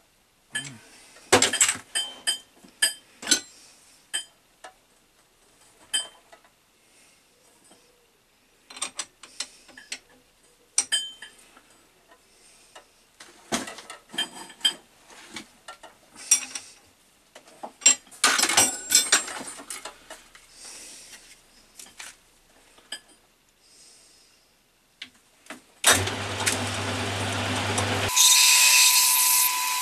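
Steel tools and fittings clinking and knocking on an Atlas 10 metal lathe, in scattered sharp strokes. About 26 s in the lathe starts up, and from about 28 s it runs with a loud, steady high whine.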